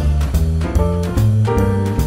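Jazz background music, with a bass line stepping from note to note about every half second under higher sustained instrument notes.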